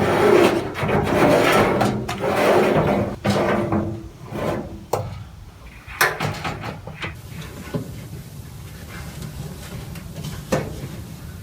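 Samsung dryer drum and belt being handled to seat the drum onto its rear rollers: about four seconds of heavy scraping and rubbing, then a few separate knocks and clunks.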